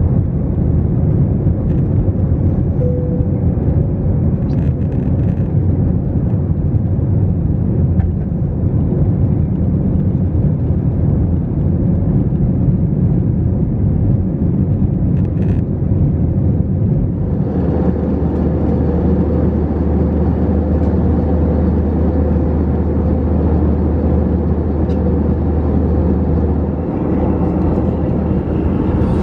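Airbus A321-200 jet engines and airflow heard inside the passenger cabin during the climb after takeoff, a steady loud rumble. A little over halfway through it changes abruptly to a different steady cabin drone with a stronger deep hum, as heard in flight later on.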